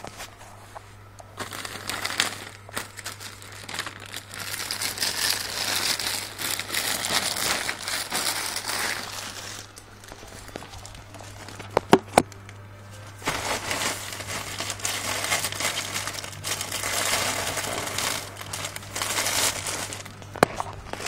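Plastic shopping bag and clear plastic wrapping crinkling as a jacket is pulled out and handled, in two long stretches with a few sharp clicks between them. A low steady hum runs underneath.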